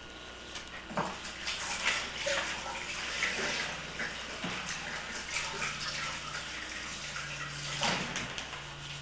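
Water running from a kitchen tap and splashing in a sink, with a few small clicks.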